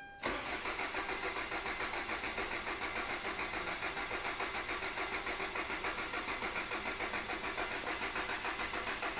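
Hyundai Grand Starex's D4CB 2.5-litre diesel engine being cranked by the starter motor in one long, even run without catching, then stopping near the end. It is a no-start: the fuel rail shows no fuel pressure while cranking.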